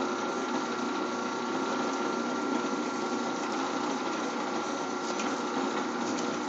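WS-0251 copper wire stripping machine running steadily, its cutters and feed rollers turning with a constant whir and a steady whine.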